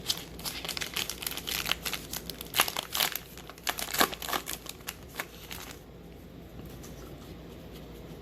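Wrapper of a 2019 Topps Allen and Ginter baseball card pack being torn open and crinkled: a dense run of sharp crackles that stops about six seconds in.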